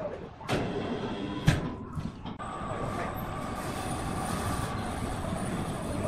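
Overhead hoist lifting a large log in a cable sling. A few sharp clanks come first, the loudest about a second and a half in. From about two and a half seconds in, the hoist runs with a steady hum and a thin high whine.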